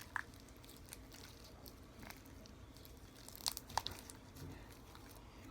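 Faint sticky crackles and pops of homemade glue-and-detergent slime being squeezed and pulled by hand, with a few sharper clicks about three and a half seconds in.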